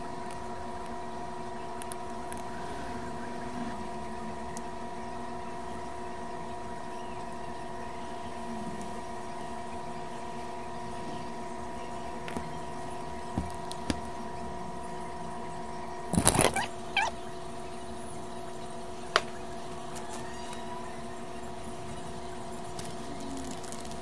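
Steady electrical hum holding several pitches, with a few light taps and a short clatter about two-thirds of the way through as the opened iPad Pro's screen and body are handled.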